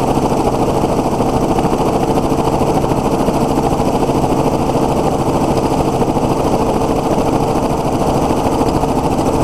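Helicopter's engine and rotor running steadily in flight, a loud, even drone with a steady hum.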